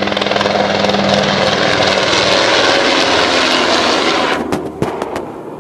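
Helicopter powered by two General Electric CT7 turboshaft engines flying past close by: a loud, steady rotor and turbine noise that fades away about four seconds in. A few sharp clicks come near the end.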